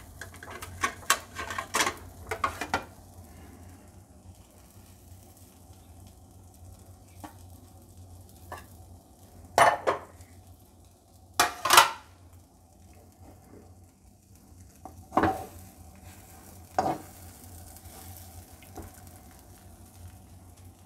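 Sharp clinks and knocks of a metal spatula against a nonstick frying pan and of ceramic plates being handled, with a quick cluster in the first few seconds and single knocks later on, over a faint steady sizzle of an omelette frying on a gas burner.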